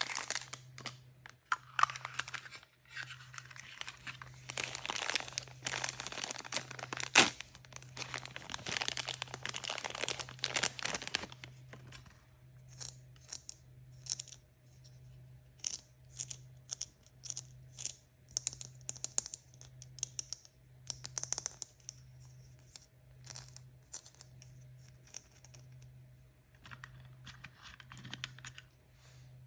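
Toy surprise packaging being torn open and crinkled by hand: a dense stretch of tearing and rustling for the first ten seconds or so, then scattered crinkles and light clicks.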